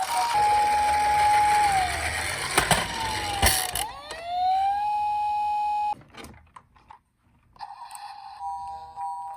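Electronic siren of a toy emergency vehicle: a wailing tone holds, falls away about two seconds in, then rises again after two sharp clicks and holds before cutting off suddenly about six seconds in. Near the end a quieter two-tone siren starts alternating.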